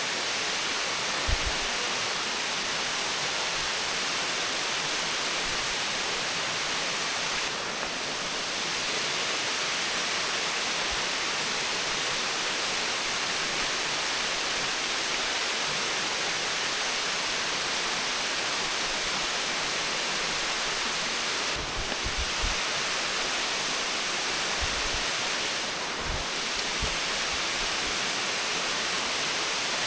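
Creek water rushing steadily over rocks, an even hiss at a constant level, with a few low bumps about a second in and again near the end.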